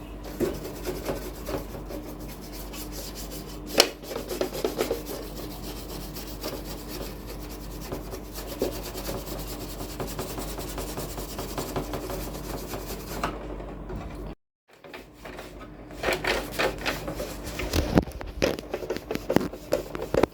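Rubbing and scraping on the casing of a radio cassette recorder as it is cleaned, with many small ticks and a sharp click about four seconds in. It cuts out briefly about two-thirds of the way through.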